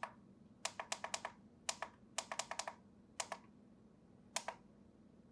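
The menu push-buttons on a Neewer F100 field monitor clicking as they are pressed to step through the on-screen settings. The clicks come in quick runs of two to six with short pauses between.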